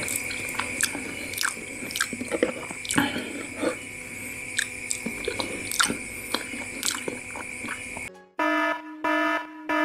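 Close-up eating: a metal fork clicking and scraping in an aluminium foil tray and chewing of soft shepherd's pie, over a faint steady high-pitched whine. About eight seconds in this cuts off and a short electronic jingle of beeping tones plays in three bursts.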